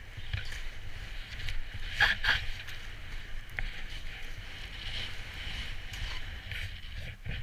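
DPS skis hissing through powder snow in a series of turns, with the loudest swish about two seconds in, over a steady low rumble of wind on the microphone.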